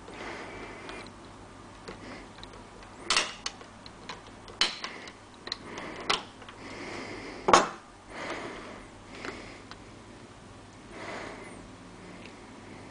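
Utility knife blade scraping and clicking against the plastic top of an inkjet cartridge as it prises up a round seal, with short scratchy scrapes and several sharp clicks, the loudest about seven and a half seconds in.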